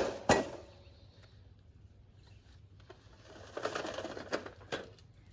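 A single sharp knock of something hard, then a couple of seconds of light clattering and clicking from hard objects being handled, ending in one sharper click.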